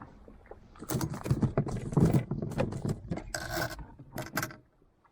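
Irregular scraping, rubbing and sharp knocks of hands, fish and fishing gear being handled in a small inflatable boat, busiest about two seconds in and dying away near the end.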